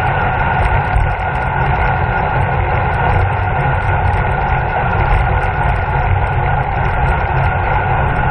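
Steady wind rush and road rumble on a bicycle-mounted camera riding at race speed, with no break or change.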